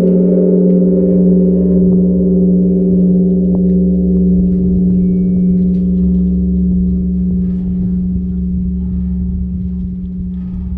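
Large Korean Buddhist temple bell (beomjong), just struck, ringing on in one long deep tone that slowly fades.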